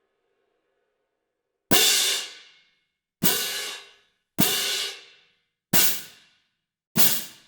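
Five cymbal hits a little over a second apart, each struck sharply and dying away in under a second, the later ones shorter.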